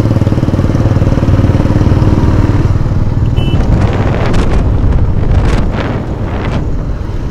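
Motorcycle engine running steadily while under way, heard from the rider's own bike, easing off slightly about six seconds in. A short high beep sounds about three and a half seconds in.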